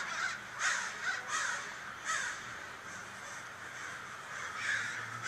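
A large flock of crows cawing, many harsh caws overlapping in the first two seconds, then thinning out and growing fainter.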